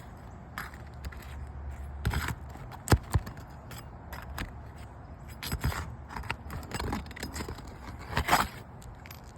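A metal pry tool scraping and knocking under asphalt shingles as a roofing nail is worked loose, in a handful of short, sharp scrapes and taps.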